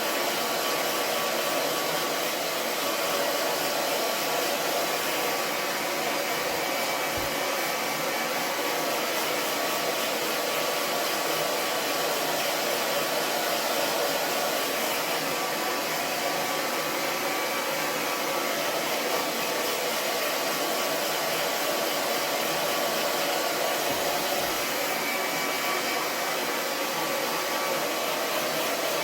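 Handheld hair dryer running steadily: an even rush of air with a faint constant motor whine.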